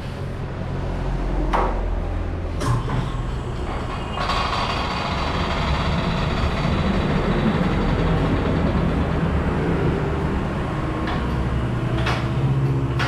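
Steady mechanical running noise over a low hum, growing louder and fuller from about four seconds in, with a few sharp knocks.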